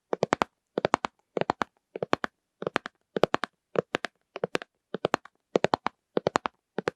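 Fingers tapping on plastic lids in quick little runs of three or four clicks, about one run every half second, steady and unhurried.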